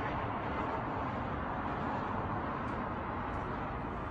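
Steady outdoor city background noise: an even hiss with no distinct sounds.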